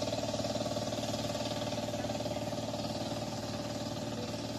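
Walk-behind hand tractor's engine running steadily under load as it plows a flooded rice paddy, with a fast, even chugging.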